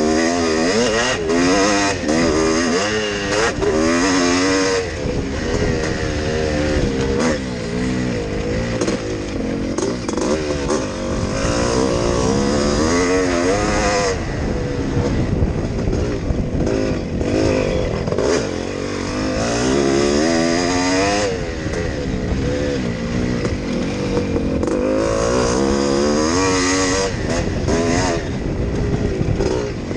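Yamaha YZ465 two-stroke single-cylinder motocross engine running hard under race load, heard from on the bike. Its pitch rises and drops back again and again as the rider works the throttle and gears.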